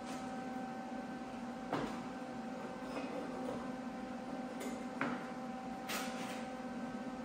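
A few short clicks and knocks, about four of them, from hands-on work on a steel mini-bike frame, over a steady hum.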